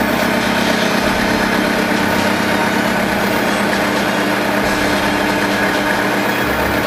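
Metal lathe running steadily: a constant motor-and-gear hum under a dense, even hiss.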